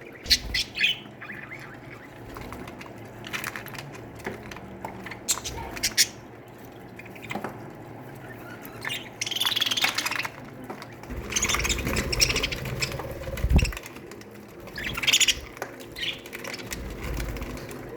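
A colony of budgerigars chirping and squawking in an aviary, short scattered calls throughout. A low rumble runs through the middle.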